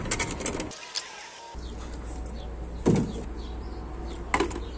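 Plastic clicks and knocks from a hand-pump garden pressure sprayer as its pump head and dip tube are fitted into the bottle. A dull thump comes about three seconds in, and a few sharp clicks near the end.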